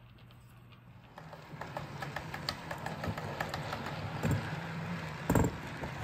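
O/On30 model steam locomotive hauling log cars along the track. A faint steady hum, then from about a second in a louder run of rapid clicking and rattling from the train on the track, with one sharper knock near the end.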